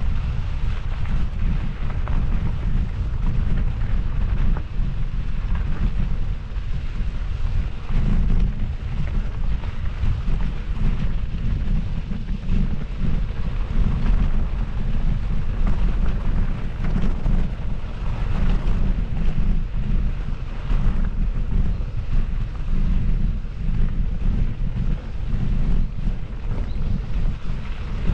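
Wind buffeting the microphone of a camera riding along on a moving mountain bike: a continuous low rumble that keeps rising and falling.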